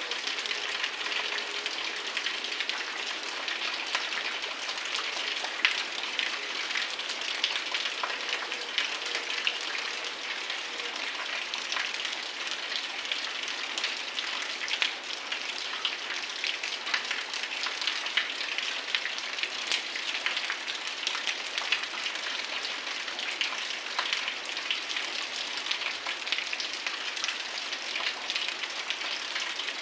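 Heavy rain falling steadily: a dense even hiss with many small sharp drop impacts close by.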